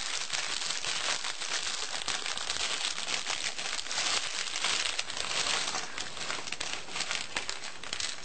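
Thin clear plastic parts bag crinkling continuously as hands work it and shake it, with small clicks of Lego pieces spilling out onto the table; the rustling stops near the end.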